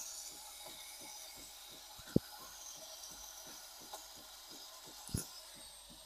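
Philips 3200 Series LatteGo coffee machine frothing milk: a steady hiss over a rapid, even pulsing, about five beats a second, as hot milk pours from the spout. Two sharper clicks come about two and five seconds in.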